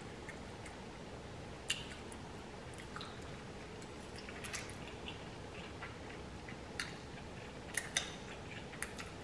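A person eating spicy ramen noodles: quiet wet chewing and mouth sounds, with scattered short sharp clicks.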